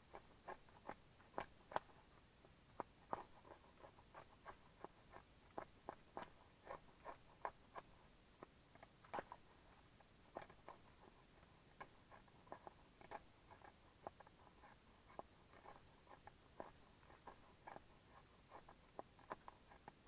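Knife blade shaving thin curls off a split stick of kindling, a run of short scraping strokes about two a second, some louder than others.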